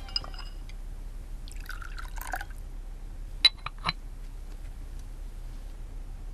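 Tea being poured into a small porcelain teacup, followed about a second later by a few sharp clinks of porcelain from the tea set as a cup is handled. A low steady room hum runs underneath.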